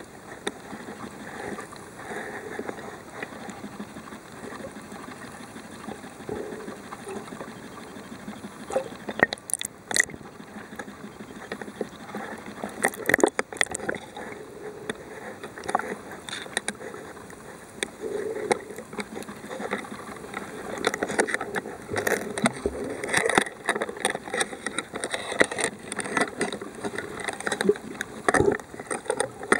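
Muffled underwater sound as picked up by a submerged camera: an uneven water rush and gurgle, with scattered sharp clicks and knocks, several of them clustered in the second half.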